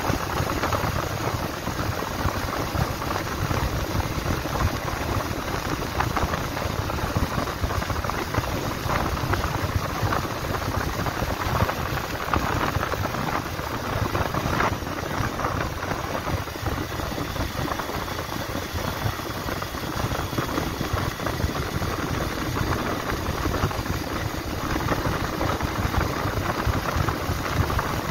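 Bajaj Pulsar 150's single-cylinder engine running steadily at a cruise of about 55 km/h, mixed with a steady rush of wind and road noise.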